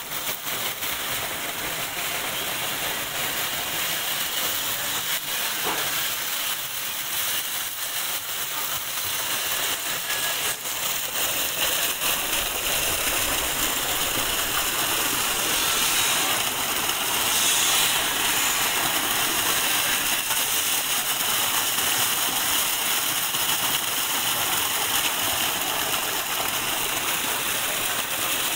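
Water pouring and splashing from inflow pipes into a concrete trout raceway: a steady rushing hiss that grows a little louder about halfway through.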